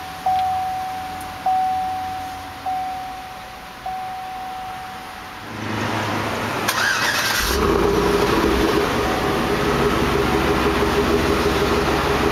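Chevrolet Tahoe's dashboard warning chime dinging four times, about a second apart, with each ding fading. About halfway through, after a short rush of noise, comes the 2008 Tahoe's V8 exhaust running steadily at the tailpipe.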